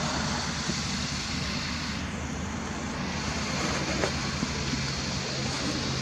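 Steady background rumble and hiss with a low, steady hum underneath, outdoors under open sky.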